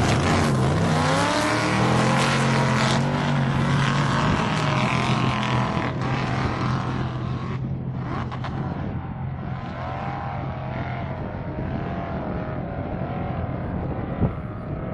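Off-road race vehicle's engine at high revs going past, its pitch dipping about a second in, then fading steadily into the distance with the revs rising and falling. A single short click near the end.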